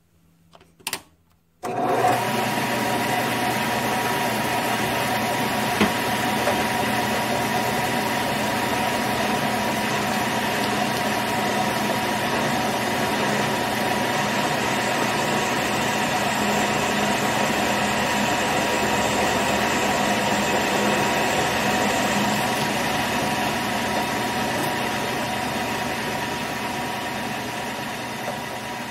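Grizzly G9972Z bench lathe starting up about two seconds in, just after a click, then running steadily with a motor and gear whine while a tailstock drill bit is fed into a broken steel bolt spinning in the four-jaw chuck.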